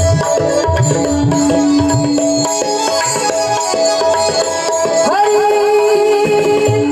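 Instrumental kirtan accompaniment: tabla drumming under long, steady held melodic notes.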